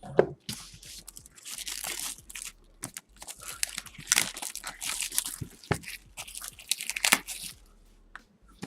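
Plastic wrapping on a trading-card box being torn and crinkled open in several rips, with a few sharp clicks.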